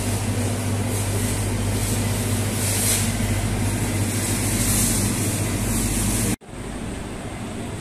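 Steady hum and whir of a refrigerated meat display freezer. It cuts off abruptly a little over six seconds in, leaving a quieter steady room hiss.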